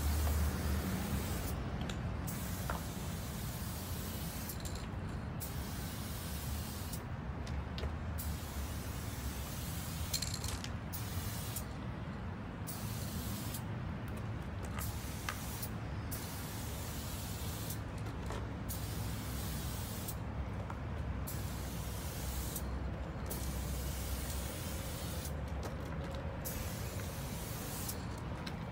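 Aerosol spray paint can hissing in bursts of a second or two, broken by about a dozen short pauses as the nozzle is released and pressed again. A steady low rumble runs underneath.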